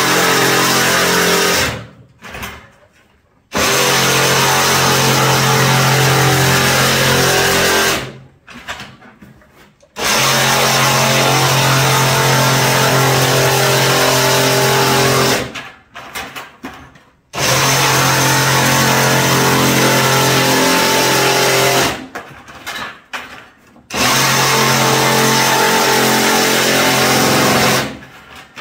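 Cordless one-handed reciprocating saw cutting through a plastic bucket. It runs in bursts of several seconds with short stops between them, five runs in all, as the cut is worked around the bucket's base.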